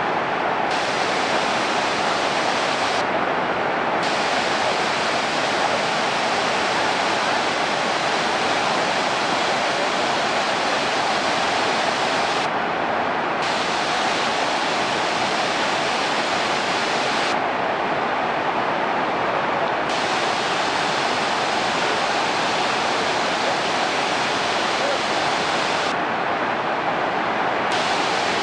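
Pykara waterfall's rushing water: a loud, steady roar of falling and flowing water that does not change.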